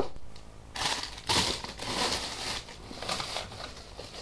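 A sharp click, then crinkling and rustling in several short bursts as supplies are rummaged through in search of the whipped-cream clay.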